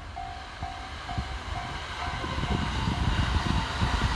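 Japanese level-crossing warning bell ringing, a steady repeated tone about two strokes a second, while an approaching train's rumble grows louder and covers the bell by about halfway through.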